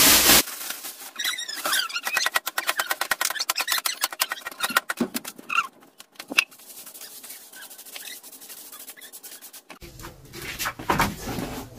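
A plastic bag crackles as it is shaken out, then husks rattle and scratch across a concrete floor under a soft broom in quick strokes, followed by a softer steady sweeping hiss. A few high squeaks come through among the strokes.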